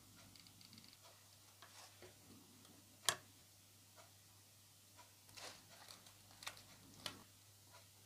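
Faint, scattered clicks and taps of artificial flower stems and a hot glue gun being handled on a wooden tabletop, with one sharper click about three seconds in.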